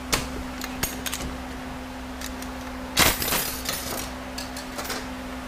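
Metal parts of a 68RFE transmission's reverse clutch pack clinking as the hub and plates are handled and lifted out: a few sharp clicks in the first second, then a louder rattle of plates knocking together about three seconds in.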